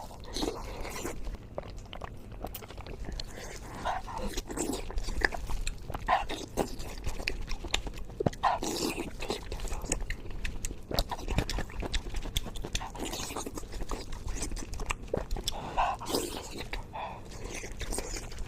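Close-miked chewing of soft, stewed pork: irregular wet mouth smacks and small clicks in a steady run of bites.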